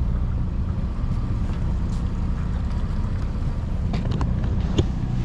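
Outboard motor on a small fishing boat running steadily, with wind on the microphone and a few light clicks, mostly near the end.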